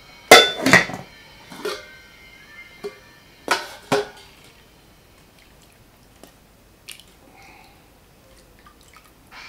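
Steel cookware clanking against a stainless steel bowl as cooked rice is tipped and scraped in. There are several sharp, ringing knocks in the first four seconds, loudest at the start, then a few faint taps.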